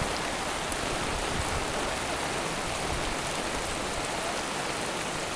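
Heavy rain falling steadily on floodwater and wet ground, an even hiss.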